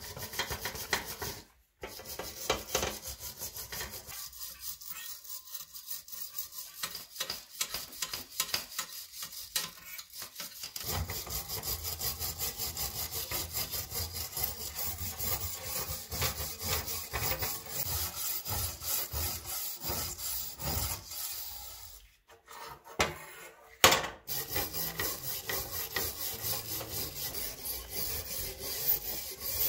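Hand wire brush scraping rust off a corroded steel sword blade in rapid back-and-forth strokes. The strokes stop briefly twice, and a single sharp knock comes about three-quarters of the way through.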